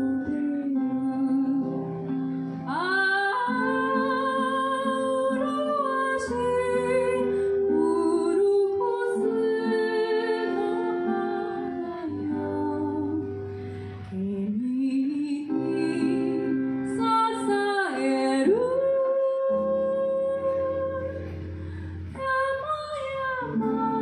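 A woman singing a slow song live, holding long wavering notes, over her own acoustic guitar accompaniment.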